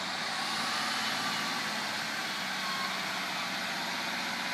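Class 153 single-car diesel multiple unit approaching the level crossing at low speed: a steady hiss of engine and wheels on rail with a thin, high, steady whine above it.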